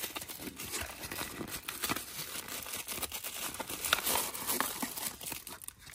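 Plastic toy packaging crinkling and rustling in irregular crackles as it is handled and torn open.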